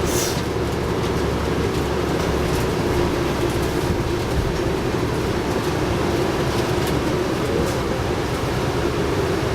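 Onboard sound of a 2011 New Flyer D60LFR articulated diesel bus running, with its Cummins ISL9 engine and Allison B500R transmission: a steady rumble with a hum over it and a brief hiss right at the start.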